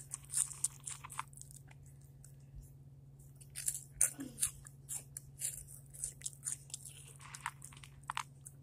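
A person crunching and chewing hot chips close to the microphone, in quick crisp bites, with a pause of about two seconds near the start before the crunching picks up again.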